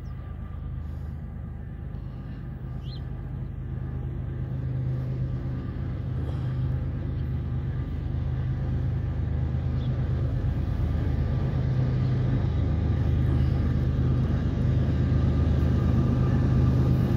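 Diesel engine of a CSX GE freight locomotive running under power as the train approaches, a steady low drone that grows steadily louder.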